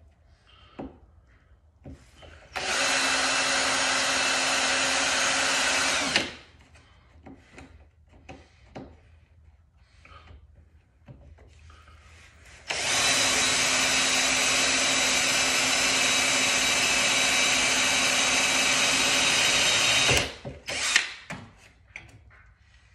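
A handheld electric power tool running at a steady speed in two bursts, one of about three and a half seconds and a longer one of about seven and a half seconds. Between the bursts come scattered light knocks and clanks, with a couple of sharper ones just after the second burst.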